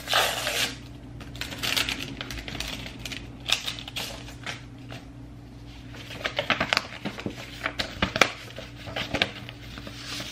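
A paper envelope being opened, then sheets of paper rustling and crackling as they are pulled out and handled, with a noisy rip at the very start and sharp paper snaps scattered through.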